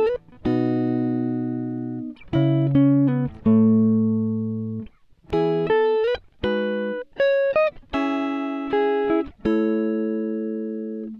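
Background music of plucked string chords, each struck and left to fade before the next, about a dozen in a row with a few short pitch slides.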